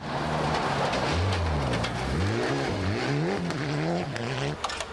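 Rally car engine at full effort, its pitch rising and falling several times as the driver revs and changes gear, with a few sharp cracks near the end.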